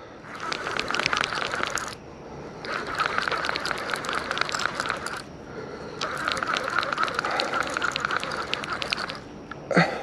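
Abu Garcia 7000 Catfish Special baitcasting reel cranked hard against a heavy fish that is barely giving any line: a rapid run of clicking gear noise, in three spells of cranking with short pauses about two and five seconds in.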